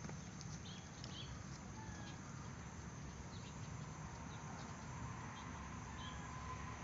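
Faint outdoor ambience: scattered short bird chirps over a steady low rumble.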